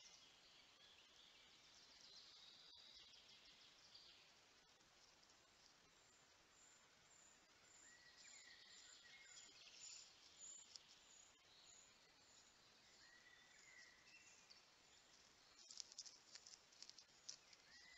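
Faint woodland ambience of small birds calling and singing, including a high series of short, evenly spaced notes in the middle. Near the end comes a burst of soft clicks and rustles.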